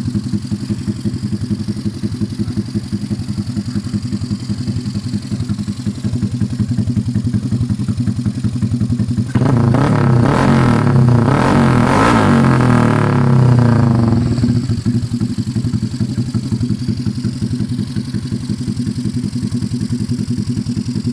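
Yamaha Mio i125 scooter's single-cylinder engine, bored out to 160cc and running through a VMAX open pipe, idling with a fast, even beat. About nine seconds in it is suddenly revved and held for about five seconds, then drops back to idle.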